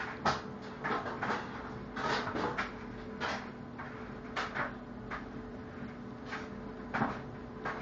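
Four-day-old puppies nursing close up: irregular short rustles and wet smacking noises, several a second, over a faint steady hum.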